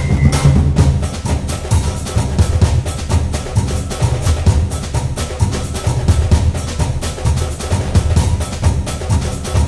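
Background music with a steady, drum-driven beat and heavy bass.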